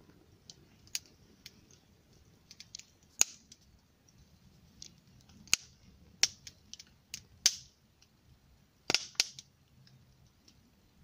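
Wood sticks burning in a small gasifier stove, crackling with irregular sharp pops. The loudest are a few single cracks and a close pair of pops near the end.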